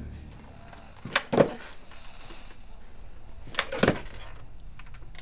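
Two pairs of dull knocks, the knocks in each pair about a quarter second apart and the pairs about two and a half seconds apart.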